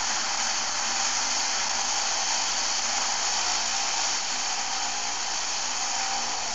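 A V8-powered blender running: the 6.2-litre Corvette V8 spins the blender through a driveshaft as it churns beef on the bone, chillies and a brick. It makes a loud, steady whirring noise, mostly high in pitch.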